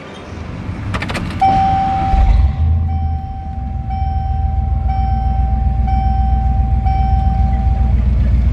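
Ignition clicks in a pickup truck, then a steady dashboard warning chime that pulses about once a second for roughly six seconds. Under it the engine cranks, catches about two seconds in and settles into a low idle.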